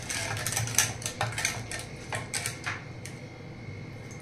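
Wooden hand churner (mathni) whisking lassi in a metal pot, its head knocking against the pot in quick, irregular clicks that stop about three seconds in.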